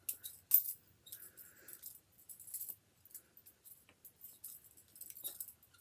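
Butterfly-knife comb being flipped, its handles clicking and clacking against each other in quick, irregular runs of sharp clicks. The loudest clack comes about half a second in.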